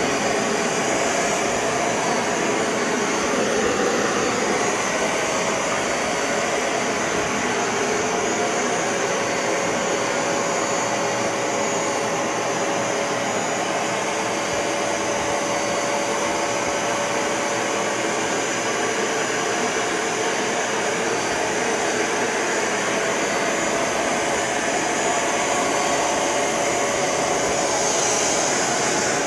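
Bissell ProHeat 2X Revolution Pet Pro upright carpet cleaner running steadily as it is worked over the carpet, its suction motor giving a steady whine.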